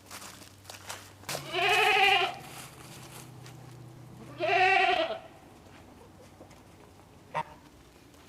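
A goat bleating twice, two loud wavering calls a couple of seconds apart, followed by a single sharp click near the end.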